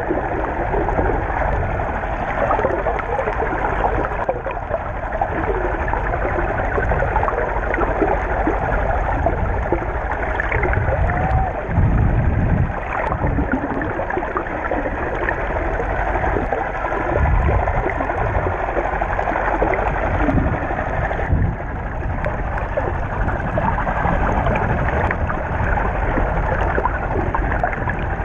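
Underwater sound of the sea heard through a GoPro's waterproof housing while snorkeling: a steady, muffled rushing and gurgling of water, with a few deeper surges around the middle.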